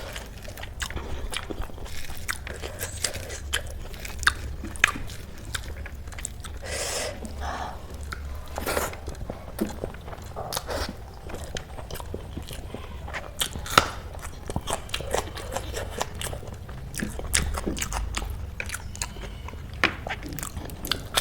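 Close-miked eating: a person chewing and crunching food, with many small irregular mouth clicks and crunches.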